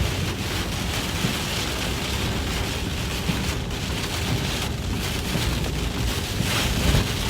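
Heavy rain pelting a vehicle, driven by strong thunderstorm outflow winds, heard from inside the cabin as a steady, dense hiss.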